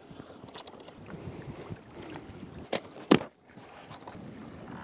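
Faint wind and water noise around a fishing boat, with a few light clicks about half a second in and two sharp knocks close together about three seconds in, the second the loudest.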